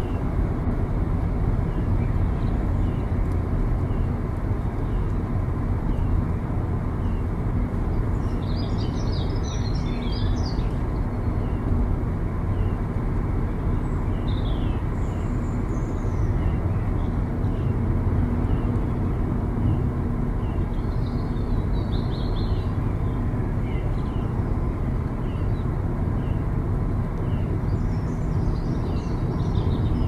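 Steady low rumble of road noise from a car driving on the highway. A few short, faint, high chirps, likely birds, come now and then.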